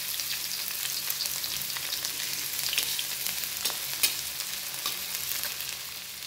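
Chopped onion sizzling in hot oil in a metal pan as it is stirred with a spoon. Steady frying hiss with occasional sharp clicks and crackles, the loudest about four seconds in.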